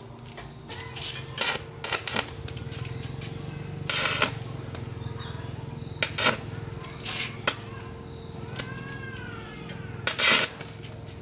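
Irregular sharp knocks and clatters, about ten in all, the loudest a cluster near the end, over a steady low hum. About two-thirds of the way through comes a short call that rises and falls in pitch.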